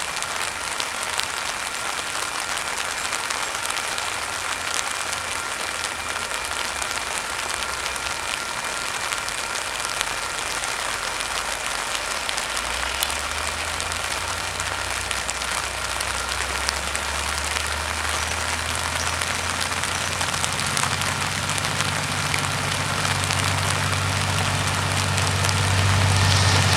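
Steady rain hiss. About twelve seconds in, the low hum of an approaching DC-class diesel-electric locomotive rises under the rain and grows louder near the end.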